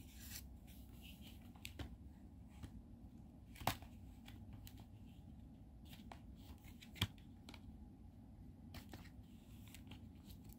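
Quiet handling of plastic movie cases: faint rustling with a few sharp clicks, two louder ones about three and a half and seven seconds in.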